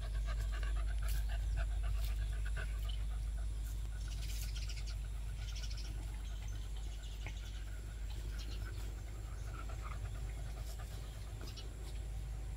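Beagle panting after running, tired out; faint bird chirps over it.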